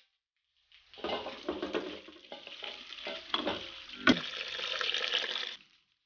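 Hands swishing and squeezing dried dragon-fruit flowers in a stainless steel bowl of water as they soak. The noise starts about a second in and stops shortly before the end, with one sharp knock against the bowl about four seconds in.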